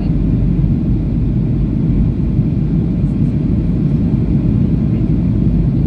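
Steady low rumble inside the cabin of a Boeing 737-800 in flight: its CFM56-7B engines and the airflow, heard from a window seat over the wing as the jet descends.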